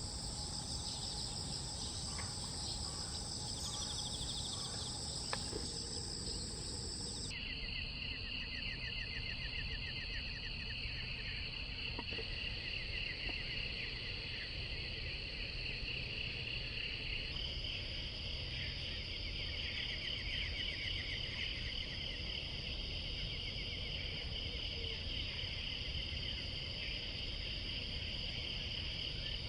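Steady chorus of insects chirping and buzzing in fast, even pulses. The mix of insect sounds changes abruptly about seven seconds in and again about ten seconds later.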